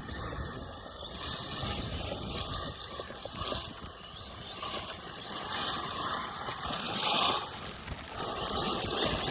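Arma Mojave EXB RC truck being driven hard over rough ground: its electric drive and tyres swell and fade several times as the throttle comes on and off, with crunching from dirt and small rocks.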